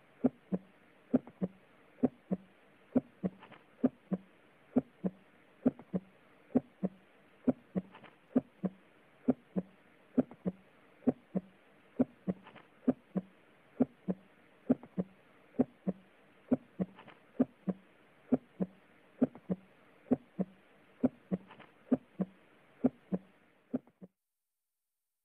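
Recorded heart sounds heard through a stethoscope: a steady lub-dub rhythm of paired beats, a little over one heartbeat a second, over a faint steady hiss. The recording cuts off abruptly near the end.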